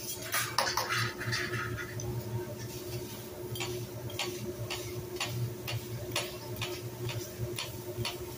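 Metal knife and spatula clicking against a steel teppanyaki griddle as the food is chopped: a short clatter in the first couple of seconds, then steady chopping taps about two a second, over a steady low hum.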